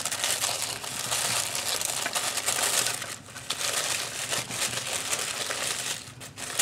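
Tissue paper crinkling and rustling as it is unfolded by hand, with short lulls about halfway through and near the end.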